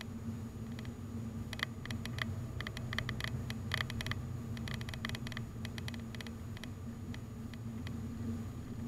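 Car driving on a winding road, heard from inside the cabin: a steady low rumble of engine and tyres. Bursts of small sharp clicks and rattles come between about one and a half and five and a half seconds in.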